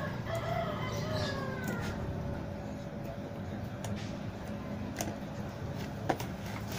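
An animal's drawn-out call, sliding slowly down in pitch for about two seconds near the start, over a steady low hum. A couple of sharp clicks come near the end.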